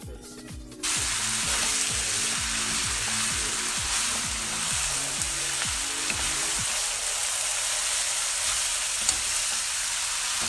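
Yakisoba noodles, sliced meat and cabbage sizzling loudly in a hot pan while being tossed with wooden spatulas; the sizzle starts abruptly about a second in. Background music with a beat runs underneath and stops about two-thirds of the way through.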